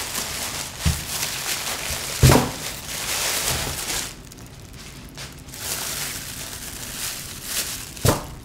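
Handling sounds: a few dull knocks, one about a second in, a louder one just past two seconds and another near the end, with a rushing hiss about three seconds in.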